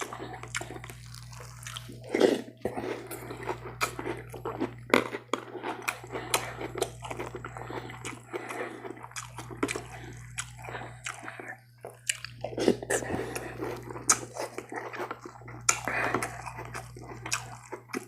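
Close-miked chewing of cereal soaked in milk: wet, crunchy mouth sounds and smacking with scattered sharp clicks, over a steady low hum.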